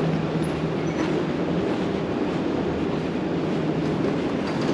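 Steady low rumble of street ambience, with a faint steady hum under it for the first few seconds.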